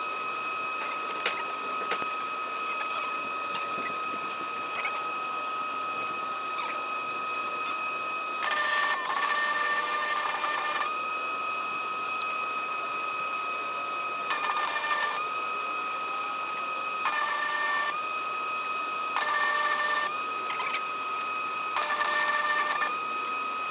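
Welding on steel cattle panels: a welder's steady high whine, broken by five bursts of crackling arc, each lasting about one to two seconds, in the second half.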